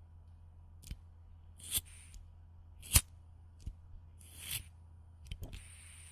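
A cigarette lighter being clicked and struck over and over: about six sharp metallic clicks a second or so apart, some ringing briefly. Near the end a steady hiss with a thin high tone sets in.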